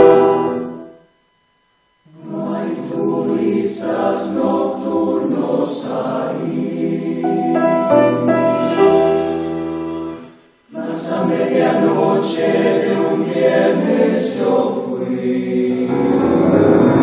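Music with a choir singing: one phrase fades out just after the start, a second of silence follows, then the singing comes back in at about two seconds and runs on, with a brief break about ten seconds in.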